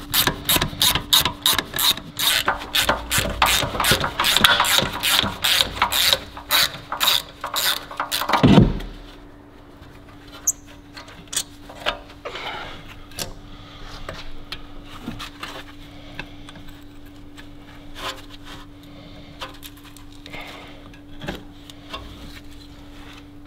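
Ratchet wrench clicking quickly and evenly, about five clicks a second, for roughly eight seconds, ending in a heavy thump. After that only a few scattered clicks and a steady low hum.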